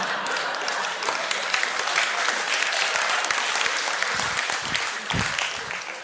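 Audience applauding, a dense spread of many hands clapping that begins to die down near the end.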